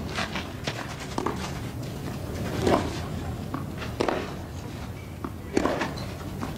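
Tennis ball struck back and forth in a baseline rally on a clay court: sharp racket hits about every one and a half seconds, with the players' footsteps between them.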